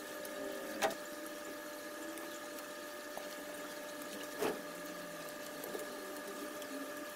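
Pruning shears snipping through ficus branches, two sharp cuts about a second in and again about halfway, with a few fainter clicks. A steady machine hum runs underneath.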